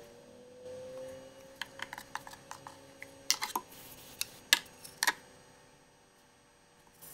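A wooden cutting board handled and set down onto a CNC router's plywood bed to be glued to the taped surface: a few light clicks, then several sharp knocks of wood on wood between about three and five seconds in, over a faint steady hum.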